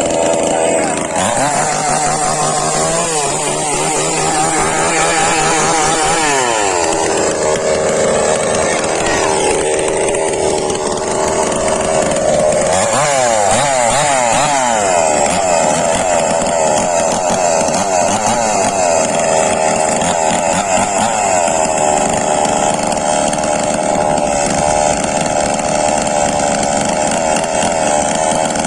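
Small two-stroke engine, of the chainsaw kind, revving up and down repeatedly as if under load, then running at steadier high revs for the last several seconds.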